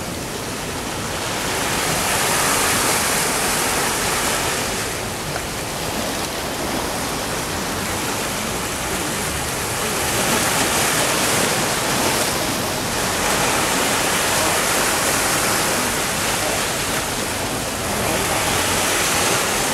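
Sea waves breaking and washing in: a continuous rush of surf that swells every few seconds as each wave comes in.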